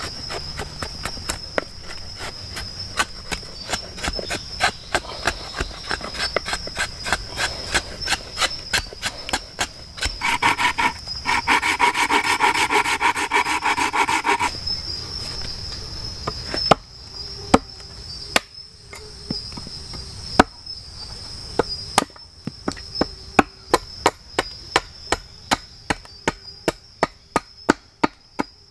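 A hatchet chopping and shaving a piece of wood on a stump in quick, regular strokes, about two to three a second. A steady high insect drone runs underneath, and a louder pitched buzz sounds for about four seconds near the middle.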